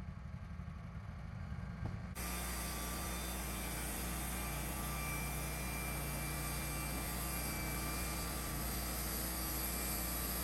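Wood-Mizer LT15 bandsaw mill running steadily. About two seconds in, the low hum changes suddenly to a louder, fuller steady sound with a faint high whine.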